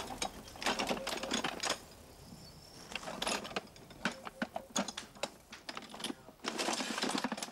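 Rapid clicking and clattering in three dense runs, with sparser single clicks between them.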